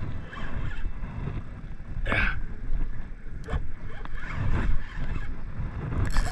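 Low rumbling wind and water noise around a small boat. A short hissy burst comes about two seconds in, a sharp click about a second later, and a brighter, wavering noise starts near the end.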